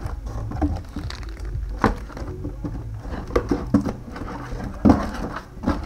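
Sealed foil booster packs crinkling and rustling, with irregular sharp taps, as a handful is tipped out and spread across a playmat, over a low steady hum.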